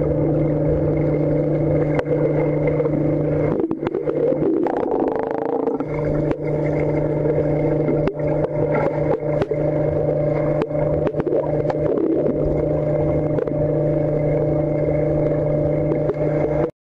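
Underwater swimming-pool sound: a steady mechanical hum made of several steady tones, heard through the water, with scattered sharp clicks and knocks from the swimmer's movement. About three and a half seconds in, the hum gives way for a couple of seconds to a noisier churning, and the sound cuts off suddenly near the end.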